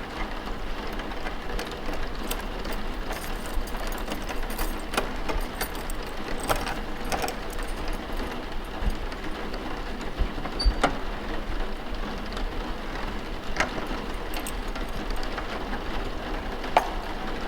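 Steady rain, with scattered light clicks and knocks over it.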